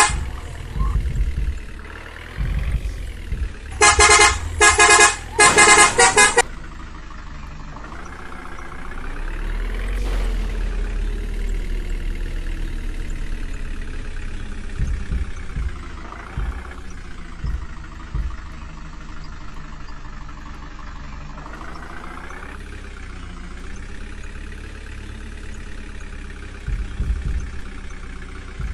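Three short vehicle-horn honks about four to six seconds in. After them, the diesel engine of a JCB 3DX backhoe loader runs, rising and falling in pitch as it revs up and eases off while working its hydraulics.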